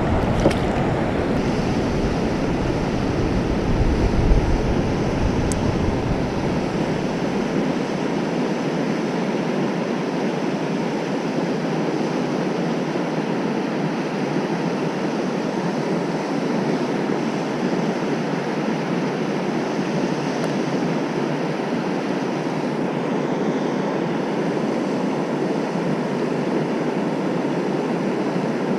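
Steady rush of water pouring over a low-head dam spillway, with a low rumble mixed in during the first few seconds.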